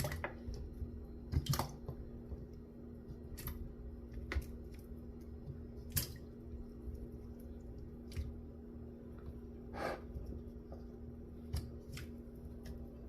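Scattered light clicks and knocks of food and utensils being handled while juice ingredients are readied for the blender, over a steady low hum.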